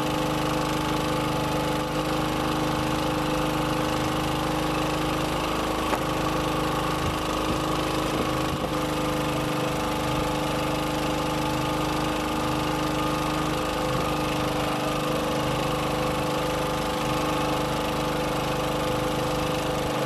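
Boat engine running steadily at a constant speed, with an even, unchanging hum.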